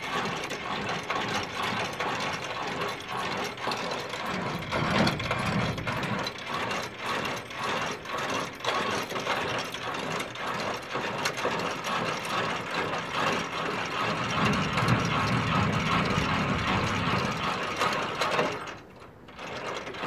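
Semi-trailer landing gear being cranked down by hand in high gear: the crank and leg gearbox make a continuous run of clicking gear noise as the legs lower toward the ground. The cranking stops shortly before the end.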